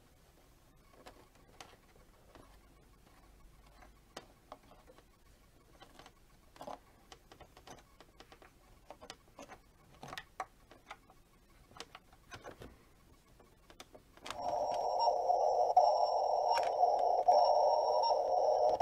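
Faint scattered clicks and taps, then about 14 seconds in a Dickie Toys Explorer toy boat's battery-powered sound effect switches on, set off by pressing the flashing beacon on its cabin roof: a loud, steady electronic tone.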